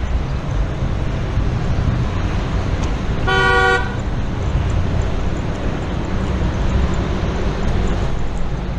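A vehicle horn beeps once, briefly, about three seconds in, over a steady low rumble of wind and road noise from moving through traffic.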